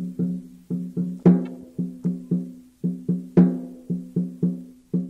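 Percussive music: a low, pitched struck note repeated about four times a second, with a sharper, louder hit about every two seconds.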